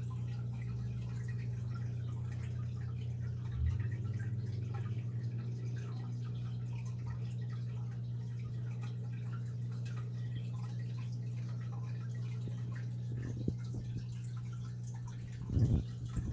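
Aquarium filter running with a steady hum and water trickling and dripping. There is a small knock about three and a half seconds in and a couple of louder bumps near the end.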